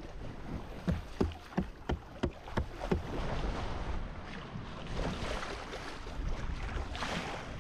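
Water rushing along a sailboat's hull under way, with wind on the microphone. Between about one and three seconds in, a quick run of about seven short, sharp splashes comes at roughly three a second, and a louder rush of water follows near the end.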